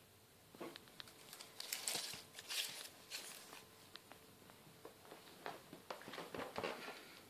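Faint rustling and scattered light clicks of handling, starting about half a second in, in a small room.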